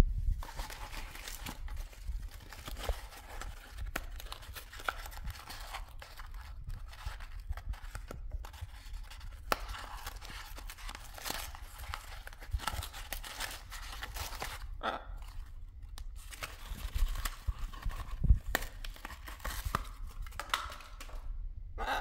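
Blue-and-gold macaw tearing and crunching a cardboard tube with its beak: irregular rips, snaps and crackles with short pauses between bouts.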